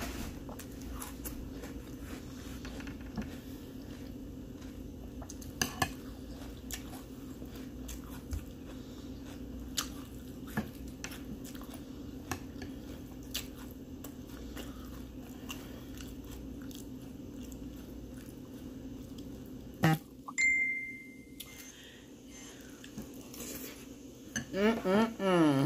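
Metal spoon clicking against a cereal bowl and crunchy Fruity Pebbles being chewed, scattered small clicks over a steady low hum. About twenty seconds in comes a sharper clink and a brief high tone, and near the end a short vocal sound with gliding pitch.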